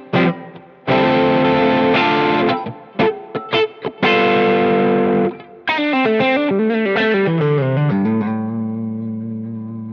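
Umeda UST QM24 electric guitar played through overdrive on its neck and bridge pickups together: held distorted chords, a few short choppy stabs, then a quick run of single notes falling in pitch, ending on a low chord left ringing and slowly fading.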